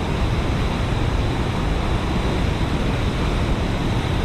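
Steady rushing of water pouring through a dam spillway.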